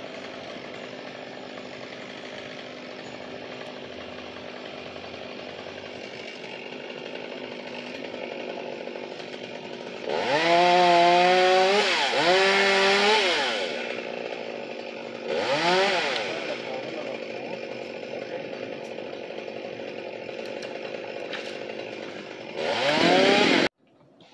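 Gas chainsaw idling, then revved hard three times, its pitch rising, sagging and climbing again. It cuts off suddenly near the end.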